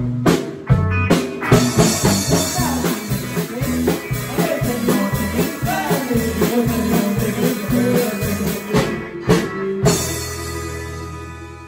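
A small band playing a country song live: drum kit, electric guitar, bass guitar and keytar, with a male lead singer. About ten seconds in the band stops on a final chord that rings on and slowly fades.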